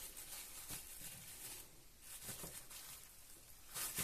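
Faint rustling of cling film and soft handling noise as dough is pressed by hand into a small plastic mould, in a few short rustles, the loudest near the end.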